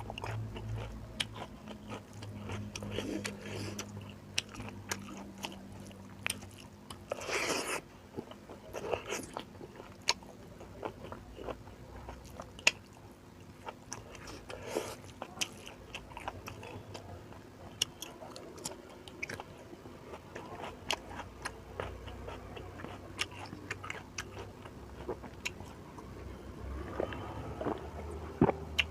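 Close-up chewing and lip smacking of someone eating beef curry with rice, with many small wet mouth clicks. A louder, longer noisy sound comes about seven seconds in.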